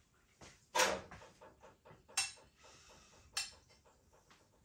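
Spoon knocking against a dish: three sharp clinks a little over a second apart, with lighter clicks between.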